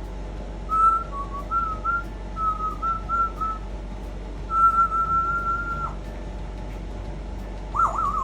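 African grey parrot whistling: a string of short, clear whistled notes stepping up and down, then one long held note that ends with a quick drop. Near the end comes a note with fast dips, followed by a wavering whistle that slides downward.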